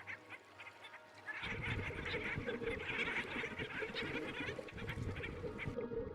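Duck-like quacking and honking, a dense busy clamour that starts about a second and a half in.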